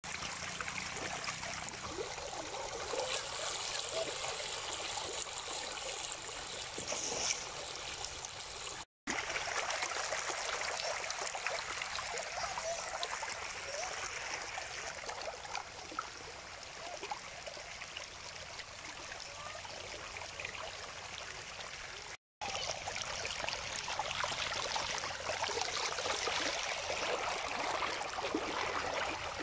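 Muddy rain runoff rushing along a sandy desert wadi bed, a steady churning rush of water. The sound drops out briefly twice, about 9 and 22 seconds in.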